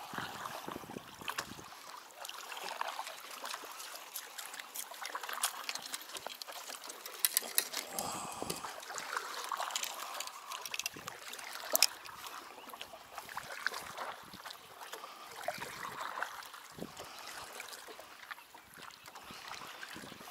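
Lake water splashing and trickling at the side of a small boat as a hooked fish is brought in by hand, with a few sharp clicks in the middle.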